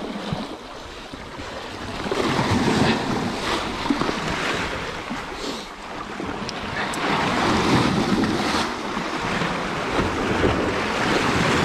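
Sea waves washing and breaking over rocks, surging louder and softer, with wind buffeting the microphone.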